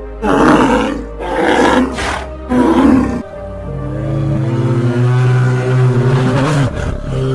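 A big cat roaring in three loud bursts, each about a second long; about three seconds in, background music with long held notes takes over.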